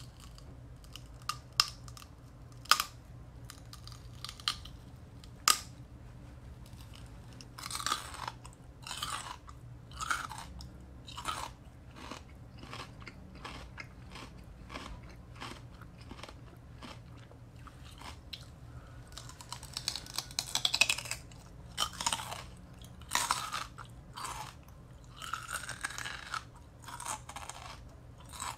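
Raw celery sticks being bitten and chewed close to the microphone: a few sharp snapping clicks in the first six seconds, then repeated bouts of chewing, busiest about two-thirds of the way through.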